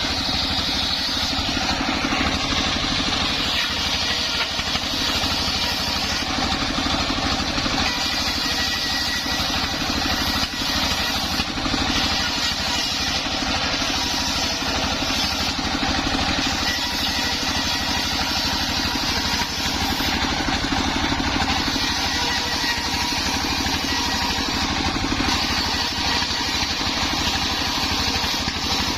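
Engine driving a homemade circular saw rig, running steadily at an even speed.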